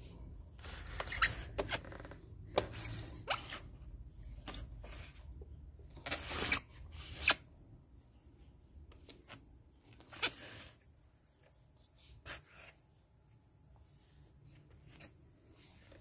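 Plastic casing of a Gradiente MPG-4 clock radio being handled: scattered clicks, knocks and short rubbing scrapes as a hand lifts and tilts the set and presses its top buttons. The noises are thickest in the first half, with the longest scrape about six seconds in. The radio itself is still silent.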